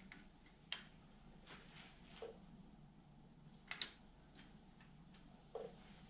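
Faint, scattered clicks and taps of a plastic switch housing on a cordless electric mower's handle being unscrewed and pried apart with a small hand tool. There are about half a dozen light clicks, two of them close together a little before four seconds in.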